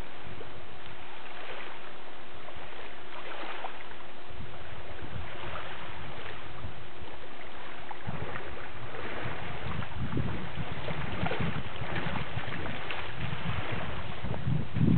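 Lake water sloshing and splashing around a person's legs as he wades through the shallows toward shore, with small waves lapping. Wind buffets the microphone, gusting harder in the second half.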